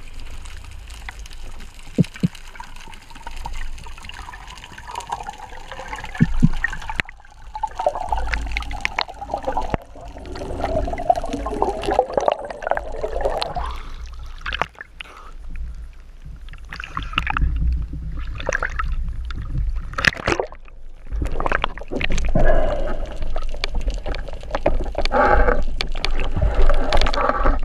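Water noise heard through an underwater camera housing: a constant low rumble with gurgling and bubbling, and scattered sharp clicks and knocks. About halfway through, the surface breaks in a rush of bubbles.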